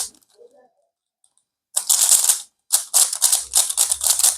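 Rubik's cube being scrambled: rapid clicking and clacking of its plastic layers turning, in quick bursts that start after about a second and a half of quiet.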